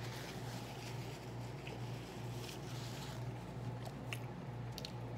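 A person chewing a mouthful of turkey burger on focaccia bread, with a few faint wet mouth clicks, over a steady low hum.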